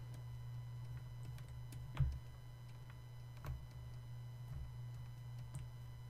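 A few faint, scattered ticks and taps of a stylus on a drawing tablet, the loudest about two seconds in, over a low steady hum.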